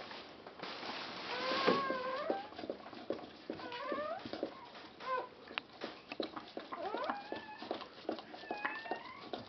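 Newborn Chodský pes puppy giving several short, wavering squeals while its mother licks it hard, with wet licking and smacking clicks in between.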